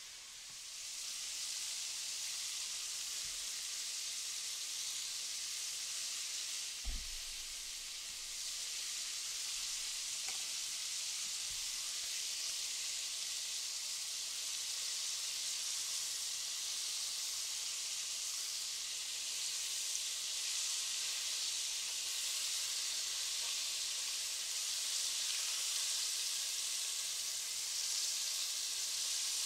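Flour-coated chicken strips deep-frying in vegetable oil in a Dutch oven: a steady sizzle that grows louder about a second in. A single low thump comes about seven seconds in.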